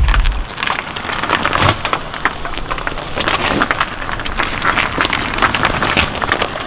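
Car tyre creeping slowly over gritty asphalt and onto a sequinned cushion, with a dense, irregular crackle of grit crunching under the tread.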